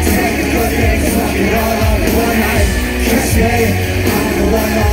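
Live rock band playing loud through a festival PA, with vocals over a heavy, steady bass.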